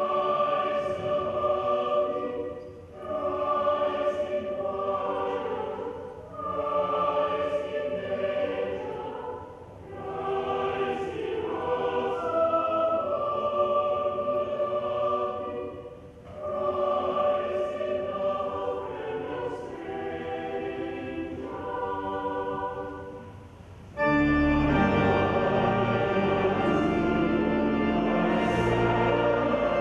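A choir singing in short phrases with brief pauses between them, with organ entering suddenly and loudly about 24 seconds in and playing full chords with deep bass.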